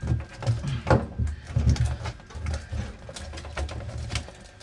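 Foil-faced sound-deadener sheet crinkling and crackling as it is pressed and smoothed by hand onto a car's floor pan, with soft, low thumps.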